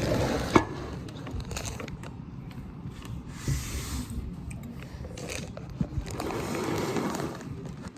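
Handling noises at a kitchen counter: scattered clicks and knocks with a few stretches of crinkly rustling and scraping, as items are picked up and set down.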